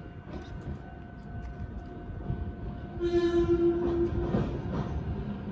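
Hokuriku Railroad 03 series electric train sounding one horn blast about three seconds in, lasting about a second, as it approaches. The clatter of its wheels on the rails follows.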